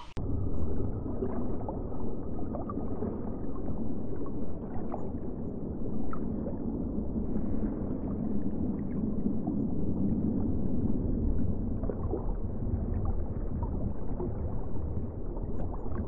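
Underwater ambience: a steady, muffled rush of water with faint, scattered short clicks.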